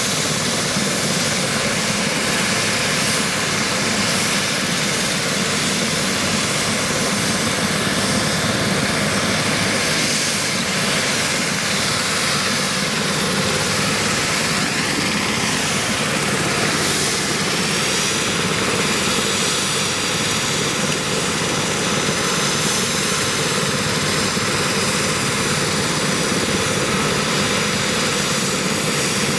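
Eurocopter BK 117 rescue helicopter running on the ground with its rotors turning: the steady whine of its twin turbine engines over the rotor noise.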